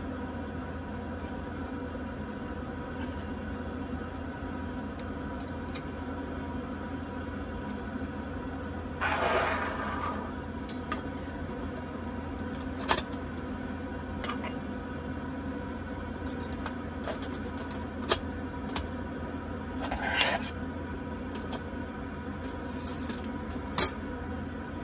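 Stainless steel plates of a small folding stove clinking and scraping as they are fitted together by hand: a short metal scrape about nine seconds in, another near twenty seconds, and scattered sharp clicks. A steady low hum runs underneath.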